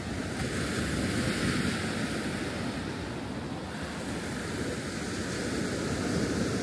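Small waves breaking and washing up a dark sand beach: a steady surf wash that swells a little about a second in and again near the end.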